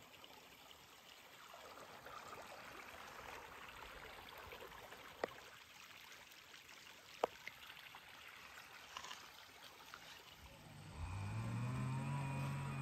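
Faint steady hiss with two sharp clicks, then about eleven seconds in an engine starts up and runs at a steady pitch.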